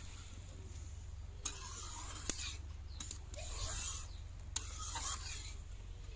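Long metal ladle stirring a watery curry in a metal kadai: soft swishing of the liquid with a handful of sharp clicks as the ladle knocks and scrapes against the pan.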